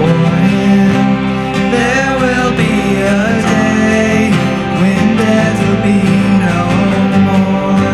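Live worship band playing a slow song: keyboard, acoustic and electric guitars, with singers' voices holding and sliding between notes over them.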